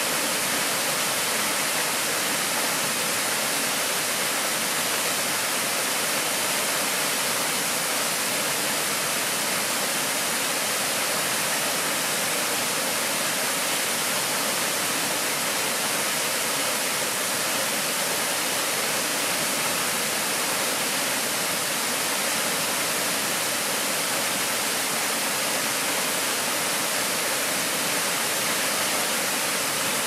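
Waterfall rushing steadily: a thin fall of water pouring over a rock overhang and splashing onto the rocks and pool below, an even, unbroken rush.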